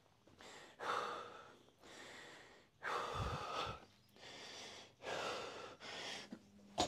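A man breathing hard with about six deep breaths in and out, each half a second to a second long. He is catching his breath between reps of a heavy barbell set.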